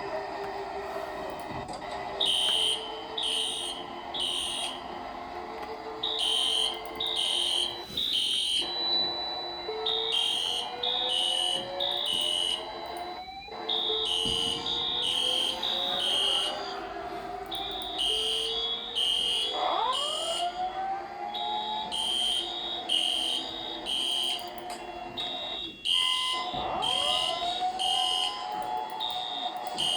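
Fire alarm sounding: rapid, repeated high-pitched beeps, starting about two seconds in and going on without a break. Rising whistling glides are heard over it now and then.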